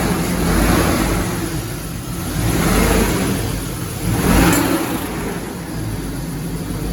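Chevrolet Silverado's 4.8-litre V8 with a K&N cold air intake being revved repeatedly from idle, rising and falling about four times.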